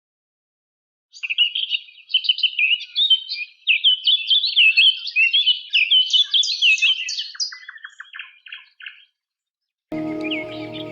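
Birds chirping in a rapid, busy chatter of high notes, ending in a run of short falling notes. Music starts just before the end.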